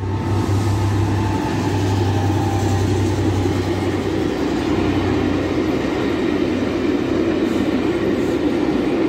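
Class 67 diesel-electric locomotive (EMD V12 two-stroke) passing on a train. A steady low engine note fades about four seconds in, leaving the continuous rumble of the train rolling by.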